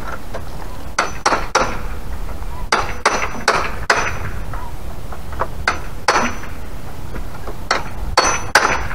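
Sharp metal knocks and taps, about a dozen in irregular clusters of two or three, some with a faint ring after them, over a steady low background rumble.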